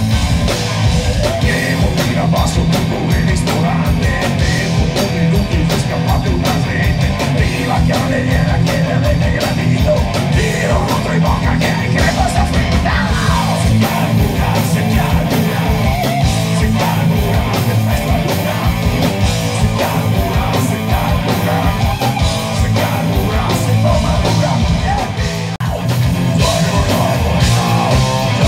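Live punk band playing loud: distorted electric guitar, bass and pounding drums through the stage PA, with a shouted vocal.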